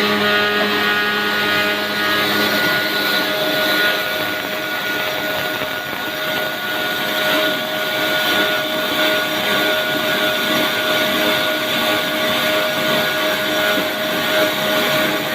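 CNC high-speed carbide sawing machine running, a loud steady machine noise with a steady whine of several tones.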